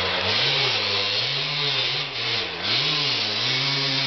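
Dirt bike engine revving under load as it climbs a steep dirt hill, its pitch rising and dropping back a few times.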